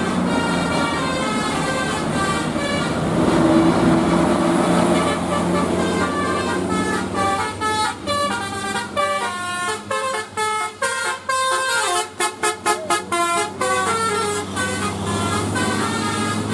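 An Indonesian bus's 'telolet basuri' multi-tone musical horn playing a tune of stepped notes over a steady low engine drone. The notes become short and rapid, in quick staccato bursts, between about ten and thirteen seconds in, then return to longer notes.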